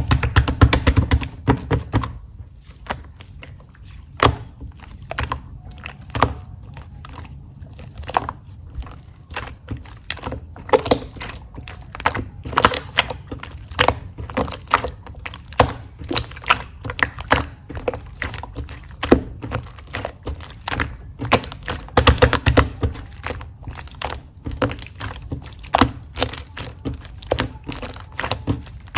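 Marbled slime being played with by hand, squished, pressed and stretched, making a stream of irregular small clicks and pops. Heavier, louder handling comes in the first couple of seconds and again about twenty-two seconds in.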